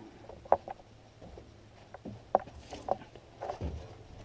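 Scattered knocks and scuffs of boots and hands on the metal of a Hitachi EX100 excavator as a person climbs up onto it, a few sharp knocks spread irregularly over a faint low rumble.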